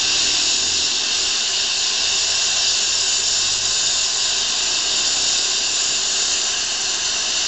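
DFB HG 3/4 rack steam locomotive standing with steam blowing off from the top of its boiler: a steady, loud, high-pitched hiss.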